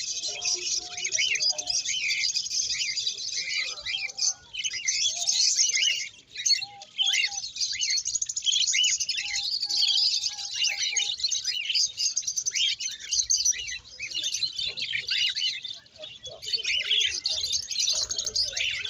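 Many caged small birds chirping and twittering together in a dense, continuous chorus of short high calls.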